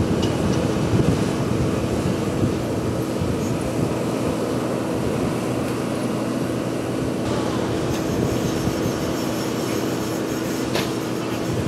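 Steady drone of airport ground machinery running, a constant low hum with a hiss over it, and a light click near the end.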